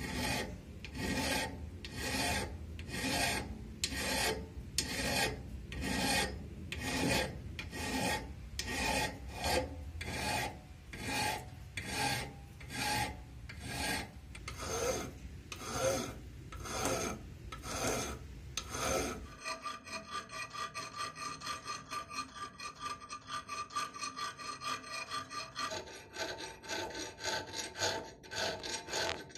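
Hand file rasping across the steel of a clamped axe head in steady strokes, a little under one a second. About two-thirds through it changes to quicker, shorter strokes of a round file working inside the axe's eye.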